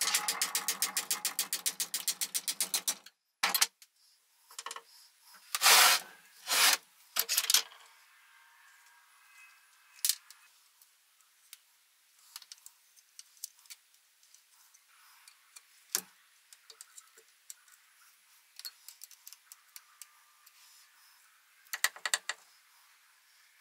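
Metal tools and parts being handled: a rapid run of clicks, about a dozen a second, for roughly three seconds, then scattered knocks and clinks with quiet gaps between them, and a short burst of clicks near the end.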